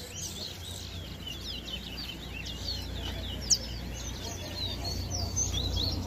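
Caged songbird singing a rapid run of high chirps and slurred whistled notes, with one louder sharp note about three and a half seconds in. A low rumble runs underneath.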